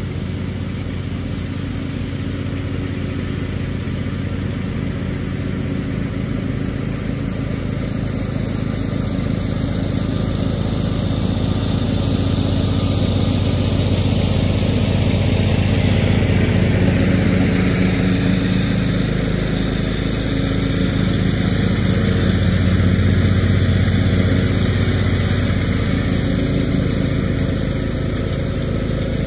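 Riding lawn tractor mowing grass, its small engine running steadily under load with the cutting deck engaged. It grows louder as the mower drives closer and passes by, then eases off slightly near the end.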